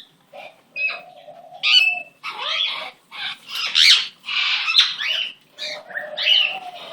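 Pet cockatiels squawking and chirping in a run of short, harsh calls, with a few brief pauses.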